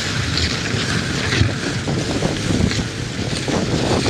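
Dog sled runners sliding over packed snow with a steady rushing hiss, mixed with wind buffeting the microphone.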